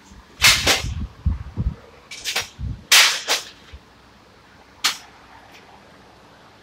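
A run of sharp metallic knocks and clanks of tools and parts on a truck's underside. The loudest come about half a second in and around three seconds, with duller thuds between them and one last knock near five seconds.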